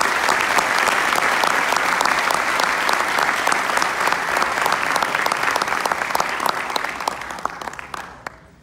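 Audience applauding: many hands clapping steadily, tapering off and stopping near the end.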